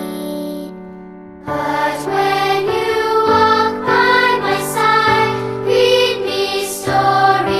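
Background music: a held keyboard chord fades away, then about a second and a half in a song with singing voices and accompaniment begins.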